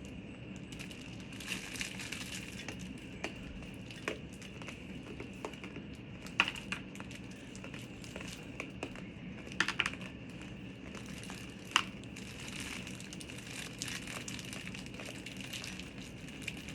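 Plastic packaging crinkling and rustling as it is handled, with scattered sharp clicks and crackles.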